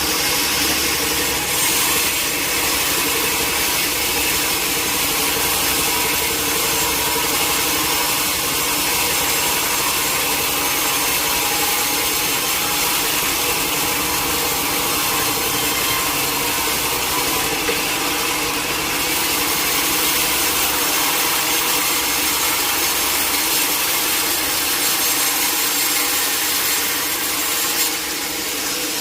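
Sawmill saw cutting through a teak log, a loud steady run of sawing noise over the hum of the machine. The level drops slightly about a second before the end.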